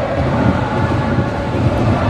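Football stadium crowd of supporters chanting, a loud steady din with no pauses.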